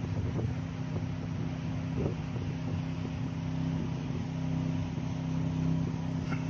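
A steady, low engine-like hum that holds the same pitch throughout, with an even rushing noise behind it and a few faint soft knocks.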